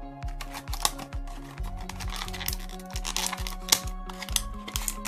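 Background music with a steady bass line, over sharp irregular clicks and rustling of clear plastic packaging being pulled off a small toy figure.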